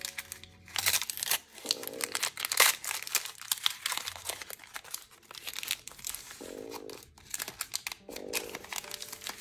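Crinkly plastic packaging being torn open and handled by hand: a small toy blind bag being unwrapped, crackling in irregular bursts.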